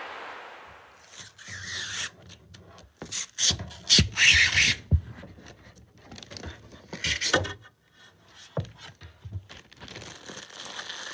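Irregular rubbing, scraping and rustling of an object handled close to the microphone, with a few sharp knocks in the middle.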